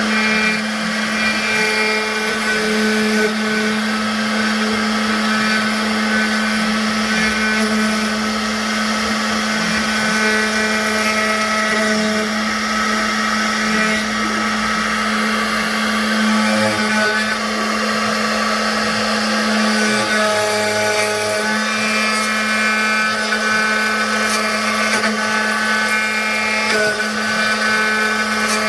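CNC router spindle running steadily while the bit carves lettering into wood: a constant whine with higher tones that shift and come and go as the cut changes.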